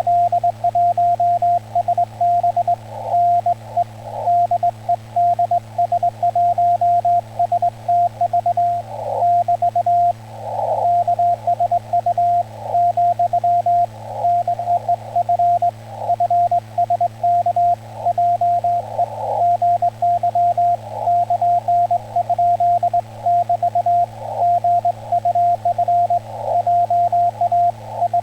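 Morse code in Korean Hangul telegraph code, heard as a mid-pitched tone keyed on and off in dots and dashes on a ham radio transceiver, with brief patches of receiver hiss between groups. A steady low hum runs underneath.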